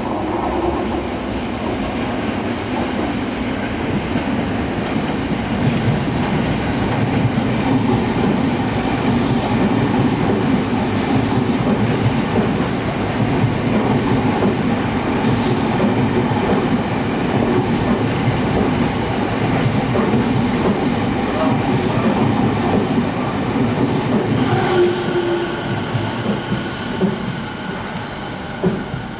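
Tokyo Waterfront Area Rapid Transit 70-000 series electric train running on the Rinkai Line: a steady rumble of wheels on rail with some clickety-clack of rail joints.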